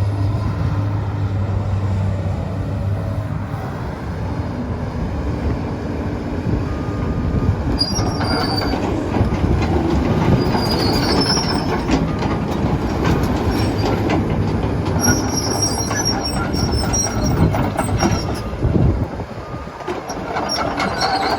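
Komatsu PC200LC-8 hydraulic excavator working, its diesel engine running steadily. From about a third of the way in, the steel tracks clank and give short high squeals as the machine moves.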